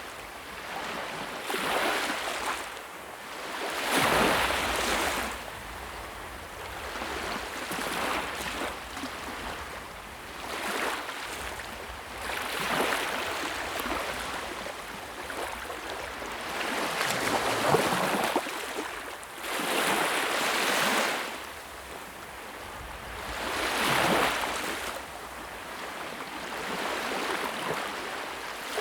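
Sea waves washing onto a shore, surging and receding in swells every few seconds, a few of them louder than the rest.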